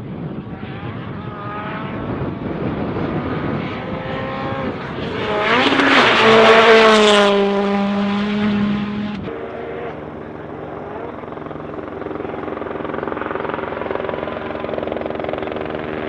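Rally car engine revving hard through the gears as the car approaches, loudest about six seconds in, its pitch falling as it passes and pulls away. After an abrupt cut about nine seconds in, another rally car's engine is heard more steadily and at a distance, growing louder near the end.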